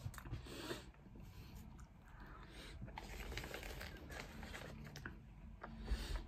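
Close-up eating sounds: chewing a soft bread sandwich, with rustling and scraping of the paper wrapping as hands pick food from the tray, in several short spells.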